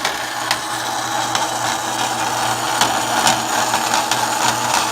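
Band saw running and cutting through aluminium plate: a steady blade hiss and whir with scattered sharp ticks as the blade is worked through the cut.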